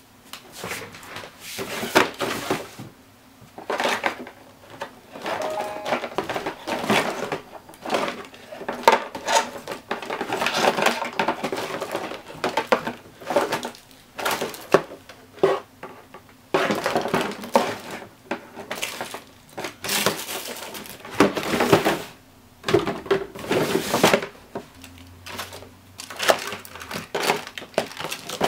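Hands handling and rummaging among small hard objects, with irregular clattering, knocks and rustling and many short sharp clicks throughout.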